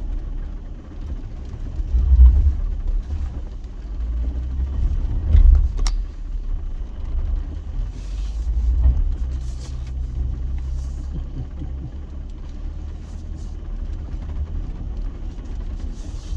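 Jeep running in four-wheel drive as it climbs an off-road trail: a low rumble that swells and eases several times, with one sharp knock about six seconds in.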